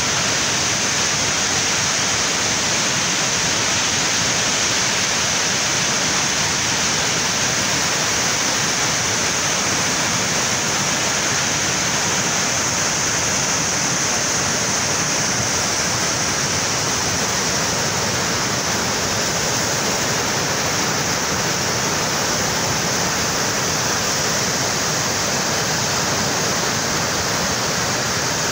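A river in flood, its muddy brown water rushing past in a loud, steady torrent.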